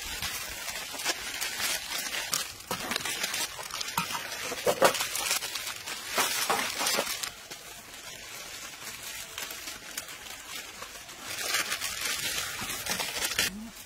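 Plastic instant-noodle packets crinkling and tearing as several people rip them open, in irregular crackly bursts.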